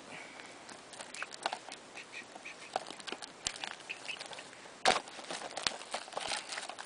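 Clear plastic shrink-wrap crinkling as it is pulled off a thick blue Blu-ray case, with scattered small clicks from the plastic case being handled and one sharp click about five seconds in.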